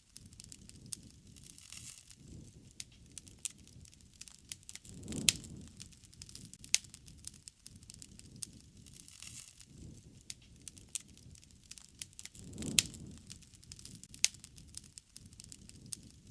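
Wood fire crackling, with irregular sharp pops over a low rush of burning. Two louder swells come about 5 and 13 seconds in, each with a loud pop.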